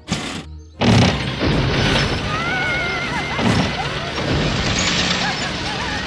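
Cartoon sound effects of a toy spinning top launched with a rack-strip ripcord: a sudden loud hit about a second in, then busy spinning effects with warbling tones over background music.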